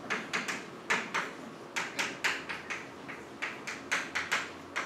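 Stick of chalk tapping and scratching on a blackboard as letters are written by hand: a quick, irregular run of short taps, about three or four a second.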